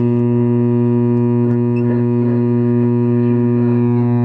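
Vintage Lafayette tube radio's speaker giving a loud, steady hum with no let-up, the sign of a bad filter capacitor. Faint warbling tones drift in and out above the hum.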